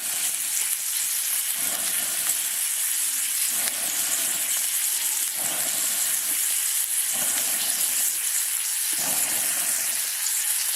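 Steak sizzling on a hot pan or grill, a steady hiss with no break.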